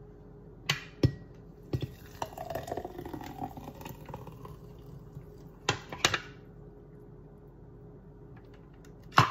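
Thick blended chocolate milkshake poured from a plastic blender jar into a tall glass, a wet, pouring-and-filling sound that is strongest about two to four seconds in. Several sharp knocks come in between.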